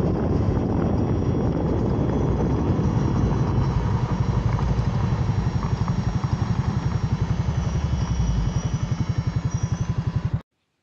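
Motorcycle engine running with an even, pulsing beat; the sound cuts off abruptly near the end.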